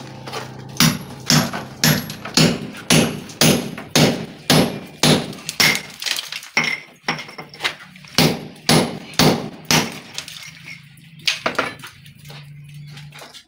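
Hammer driving a hand chisel into a plastered brick wall, breaking it open, with sharp strikes about two a second. The blows stop after about ten seconds, and a couple more come near the end.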